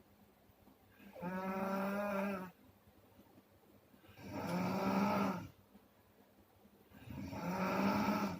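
A person snoring: three long, droning snores in an even rhythm, one about every three seconds.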